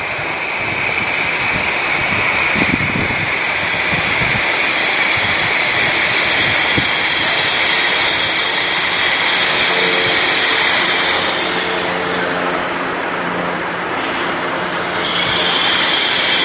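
A Deutsche Bahn ICE 3 high-speed electric train running slowly into a station platform, with a steady rolling rush of wheels on rails. A high squeal fades out after a few seconds. From about ten seconds in, steady humming tones from the train's traction equipment come in as it draws near.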